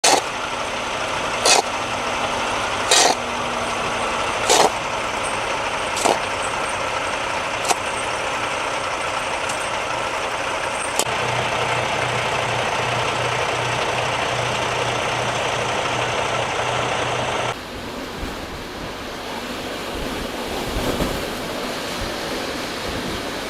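Steady rushing noise with a run of sharp knocks about every second and a half, fading over several seconds. Then a low, pulsing motor-vehicle engine throb, with an abrupt change to a quieter rushing noise near the end.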